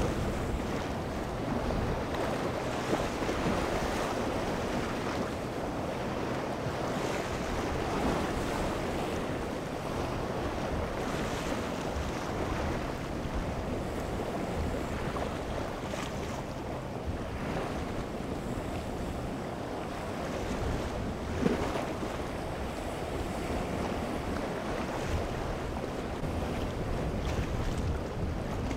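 Waves surging and breaking over jetty rocks, with wind buffeting the microphone. A single sharp knock comes about three-quarters of the way through.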